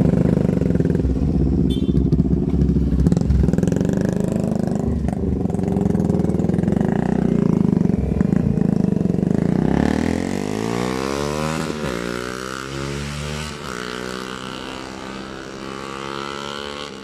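Motorcycle engines running loud and steady close by. After about ten seconds, a sport motorcycle with an aftermarket exhaust accelerates away: its note rises, drops at two gear changes, and fades into the distance.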